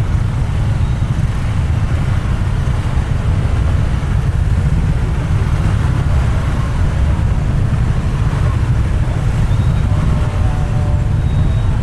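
Steady low rumble of congested road traffic: a jam of slow-moving motorbikes and cars.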